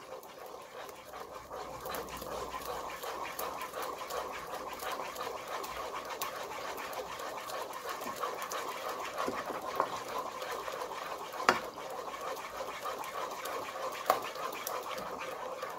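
Crêpe batter being whisked by hand in a pot: a steady, rhythmic swishing with light ticks of the whisk against the pot, and a few louder clicks.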